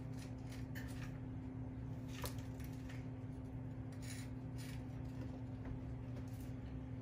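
Faint rustles and light clicks of a small blade scoring the top of a risen sourdough loaf on parchment paper, over a steady low appliance hum.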